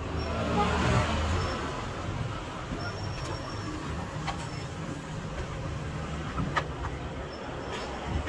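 Road traffic going by: a passing vehicle's low rumble swells to its loudest about a second in, then a steady traffic hum continues, with a few sharp clicks later on.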